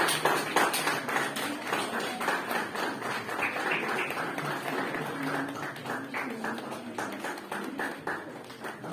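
Audience applause: many hands clapping in quick, overlapping claps that fade slightly toward the end.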